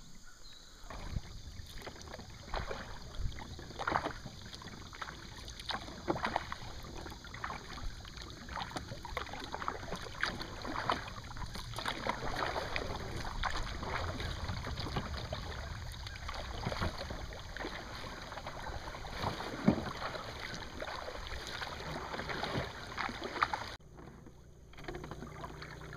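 Kayak paddles dipping into calm lake water, with irregular splashes and drips from the blades and water lapping at the hull.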